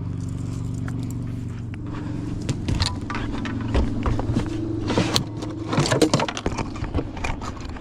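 Steady electric motor hum on a bass boat, with rattling clicks and knocks from about two and a half seconds in as the freshly landed bass and gear are handled.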